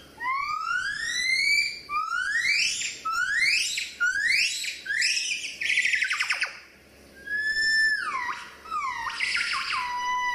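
Gibbon singing: a run of long whooping notes that sweep upward in pitch, each shorter and quicker than the last, ending in a fast trill about six seconds in. After a brief pause come several shorter level and falling notes.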